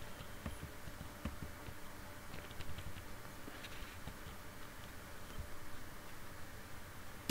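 Faint, scattered clicks of a computer keyboard being typed on, a keystroke every second or so, over a low steady hiss.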